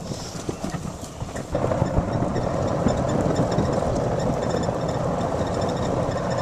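Golf cart driving over rough ground, a steady rumble with loose rattling and knocking that grows louder about a second and a half in and cuts off suddenly at the end.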